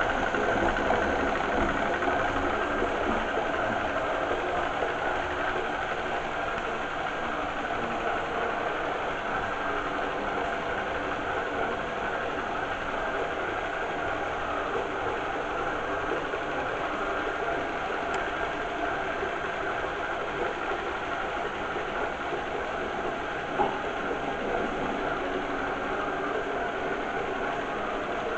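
Primo robot vacuum cleaner running steadily: the whine of its suction motor and brushes over a steady rush of air, with one brief tick near the end.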